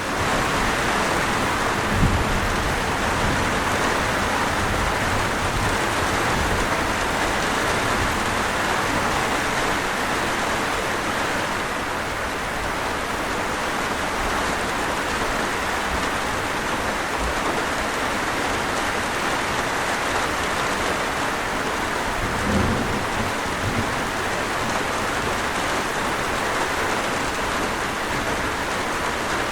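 Steady heavy rain falling on a surface, an even dense hiss. Two brief low rumbles stand out, about two seconds in and again about 22 seconds in.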